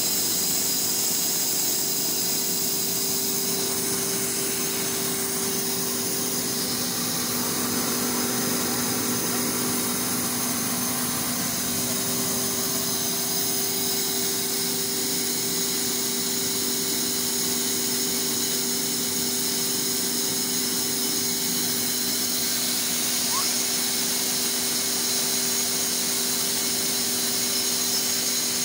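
Electric grain auger running steadily with a constant motor hum and whine as wheat is fed into its hopper and carried up.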